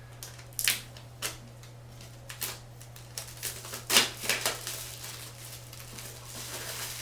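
An iPad Pro retail box and its wrapping being handled and torn open: a string of short, sharp crackles and clicks, loudest about four seconds in, over a low steady hum.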